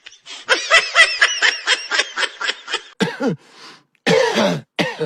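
A person laughing in a quick run of high-pitched giggles, about four or five a second, for nearly three seconds, followed by a few short vocal sounds that fall in pitch.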